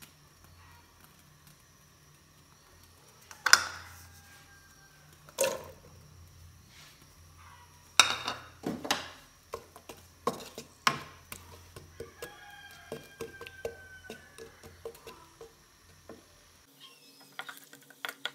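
Chopped onions going into a pan of hot oil and being stirred with a wooden spatula: three loud clatters against the pan in the first half, then a quick run of smaller knocks and scrapes.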